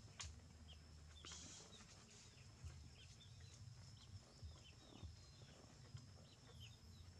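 Faint outdoor ambience: small birds twittering in short downward chirps over a thin steady high whine and a low rumble.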